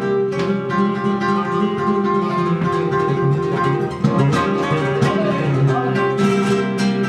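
Flamenco acoustic guitar playing: sharp strummed chords thin out into held and picked notes through the middle, and the strumming comes back near the end.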